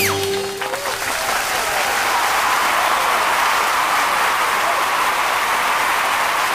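The song's last held note dies away in the first second, then an audience applauds steadily.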